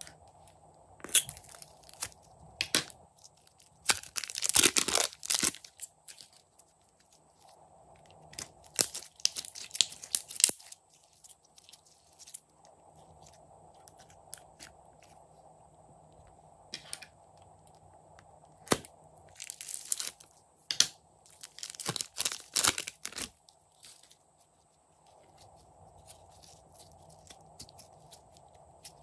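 Slime squeezed out of a plastic piping bag and worked by hand: bursts of crinkling plastic and crackly, sticky squishing, several times with quiet stretches between.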